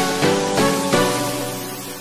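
Background music: a run of pitched notes struck every few tenths of a second, growing quieter towards the end.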